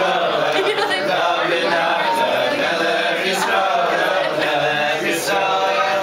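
A group of men singing a song together in chorus, loud and continuous.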